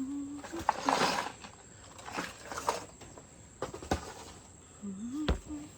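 Rummaging through a storage tote: items rustling and being handled, with a few sharp knocks and clicks, and a couple of brief hums.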